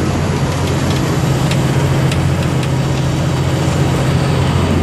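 Steady cabin noise of a car driving on a highway: a continuous low drone of engine and tyre noise, with a few faint ticks.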